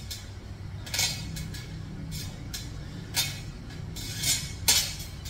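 Metal chain of a dip belt and the hanging weight plate clinking in short, sharp chinks, about six spread unevenly, with each weighted pull-up rep. A steady low hum runs underneath.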